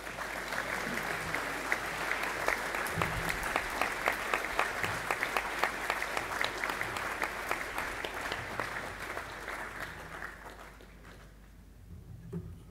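Audience applauding, a dense patter of many hands clapping that dies away about eleven seconds in.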